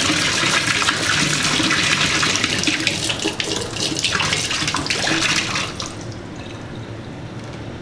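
Water poured from two upturned plastic bottles, streaming and splashing into a kitchen sink. The splashing stops about three-quarters of the way through as the bottles run empty.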